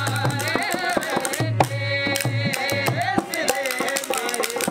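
Live Rajasthani folk music: men singing a wavering melody over a harmonium, with low dholak drum beats and many sharp clicking percussion strokes.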